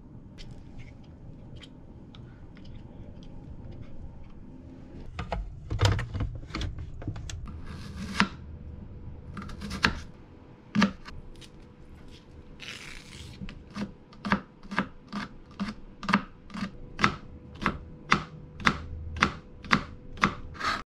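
Kitchen knife slicing cucumber and then green onion on a plastic cutting board, each cut ending in a sharp tap of the blade on the board. The taps are scattered at first and settle into a steady rhythm of about two a second in the second half.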